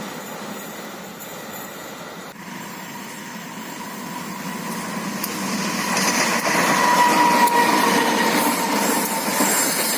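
Train running over the rails, growing louder through the second half, with a thin steady whine above the running noise.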